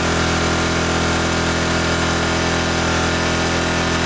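Parkside PGI 1200 B2 inverter generator's small petrol engine running at a steady speed.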